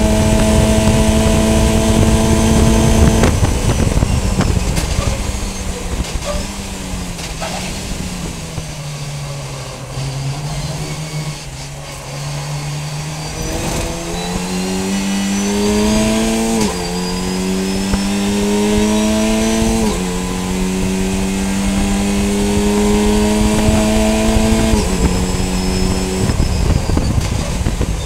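VW Funcup race car engine heard from inside the car: it runs flat out, lifts off about three seconds in, and its note sinks over several seconds as the car slows. Then it accelerates hard again, the pitch climbing and dropping sharply at three upshifts, with a faint high whine rising with the revs.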